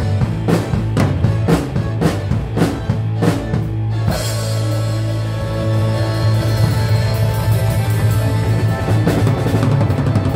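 Rock band playing with drum kit, bass and guitar. About four seconds in the drumbeat stops, leaving held notes, and the drum hits come back near the end.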